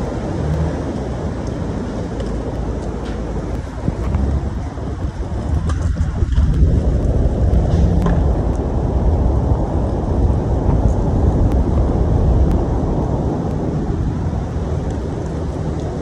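Storm-force wind buffeting the phone's microphone, a loud rumbling that swells into a stronger gust about six seconds in.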